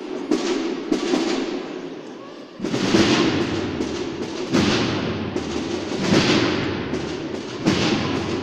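Band drum struck in a slow, uneven beat, each hit sharp and ringing on in the echo of a large church.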